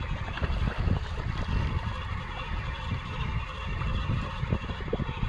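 Wind buffeting the microphone over choppy sea, with water lapping and splashing against the kayak's hull: an uneven rush, strongest in the low end.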